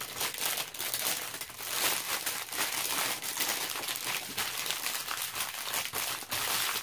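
Continuous crinkling and crackling of a diamond-painting canvas and its plastic cover as it is unrolled and smoothed flat. It is loud enough to drown out talk.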